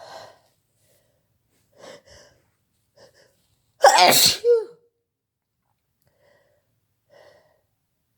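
A person sneezing during a sneezing fit: a few short breaths, then one loud sneeze about four seconds in, and a faint breath near the end.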